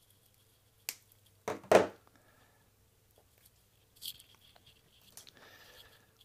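Wire cutters snipping surplus copper off a stripped mains wire: a light click about a second in, then two sharp snaps close together, followed by fainter scraping and rustling of the wire being handled near the end.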